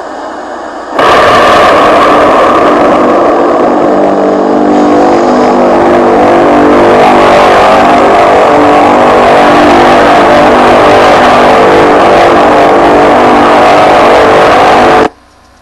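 Very loud, eerie drone of many overlapping steady tones over a hiss, from one of the 'strange sounds' recordings reported in the sky around the world, this one from Budapest. It starts suddenly about a second in and cuts off abruptly near the end.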